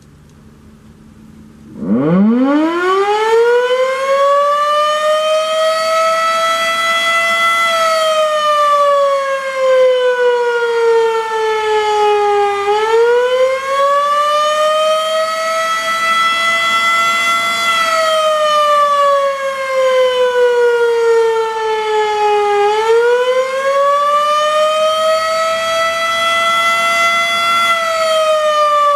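Federal Enterprises Model 5 electromechanical siren spinning up about two seconds in, then sounding the attack signal: a wailing tone that slowly rises and falls, about five seconds up and five seconds down.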